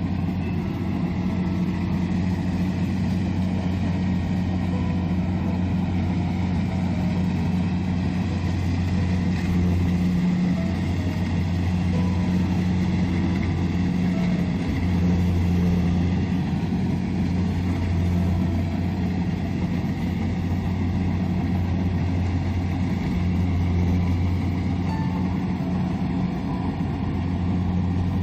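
Kubota DC-70 combine harvester's diesel engine running steadily while harvesting rice: a constant low drone that dips slightly now and then.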